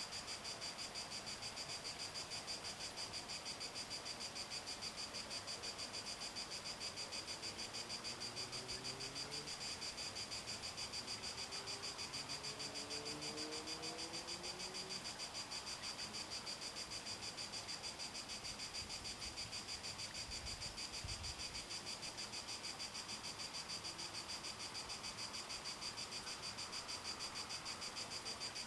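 Crickets chirping in a steady, high, rapidly pulsing trill.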